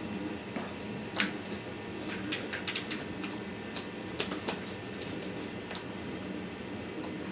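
Cats playing with a feather wand toy: a scatter of light taps and rustles, bunched in the middle, over a steady low room hum.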